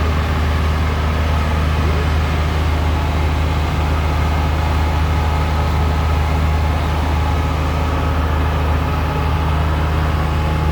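Wood chipper's engine running at a steady, unchanging pitch: a loud, constant low drone with no chipping bursts.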